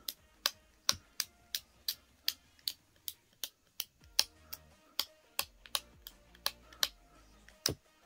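Folded dust-removal sticker dabbed again and again on a smartphone's glass and edges: a string of sharp, uneven ticks, about three a second, as the adhesive touches and pulls away.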